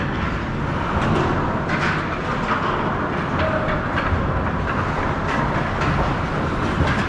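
Hockey game play: steady rink noise with sharp clacks of sticks and puck scattered throughout.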